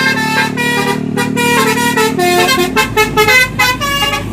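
Bus 'telolet' multi-tone musical horn playing a quick tune of short, stepping notes, over the running of the bus.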